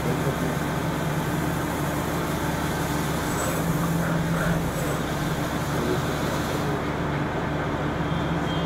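CNC machining centre running with a steady low hum and constant hiss.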